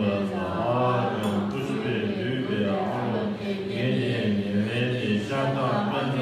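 Low-pitched Tibetan Buddhist liturgical chanting from a long-life puja, recited steadily on level, held notes.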